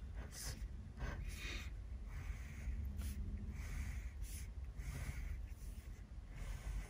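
Ballpoint pen scratching across paper in a series of short strokes, as numbers are written and grid lines are drawn.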